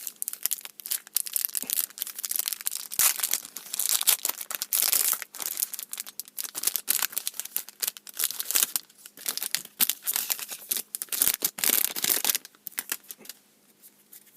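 Foil wrapper of a Yu-Gi-Oh booster pack being torn open and crinkled, a dense run of crackling and sharp rustles that dies away about a second before the end.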